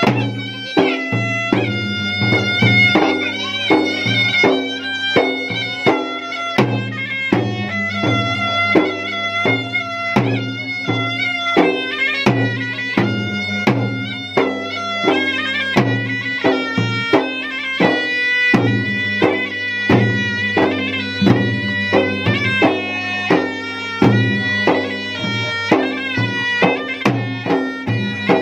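Traditional Makassar gendang music: drums struck in a steady, repeating pattern under a reedy wind instrument playing a continuous melody.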